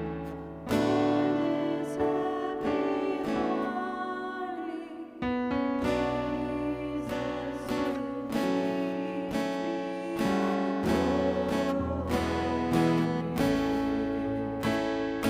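Acoustic guitar strumming sustained chords, with a new chord struck every second or two.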